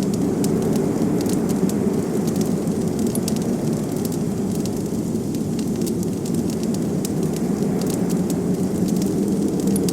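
Wood fire crackling, with frequent small sharp pops and snaps scattered over a steady low rush of blizzard wind.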